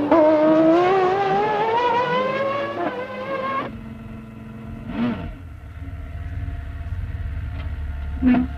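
1995 Formula One car engine at high revs, its pitch climbing steadily as it accelerates, then cutting off suddenly about three and a half seconds in. After that a lower, quieter rumble, with another car passing quickly about five seconds in and a short sharp sound near the end.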